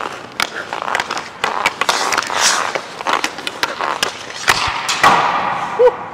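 Hockey skates scraping and carving across the ice while a stick clicks against the puck and the ice in quick stickhandling, with a harder crack about four and a half seconds in as the puck is shot.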